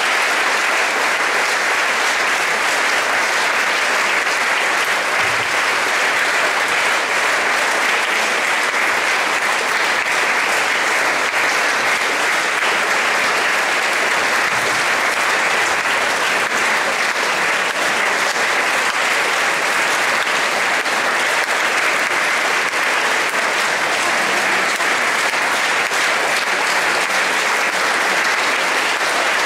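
Audience applauding steadily, many hands clapping without a break.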